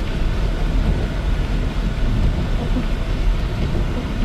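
Steady low rumble of a car driving on a snow-covered road, heard from inside the cabin: tyre and road noise mixed with the engine, unbroken throughout.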